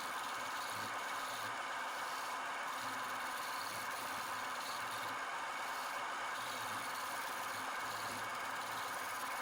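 Wood lathe running with a turning tool working the spinning wood, giving a steady scraping hiss over a faint motor hum.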